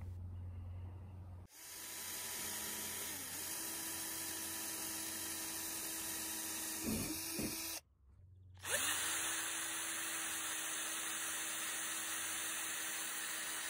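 Cordless drill boring holes through a plastic kayak deck for the rudder lines: a steady motor whine in two runs, with a brief break near the middle.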